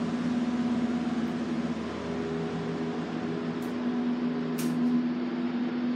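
Elevator car running with a steady low hum as it travels up its shaft. Two brief clicks come in the second half, the second one louder.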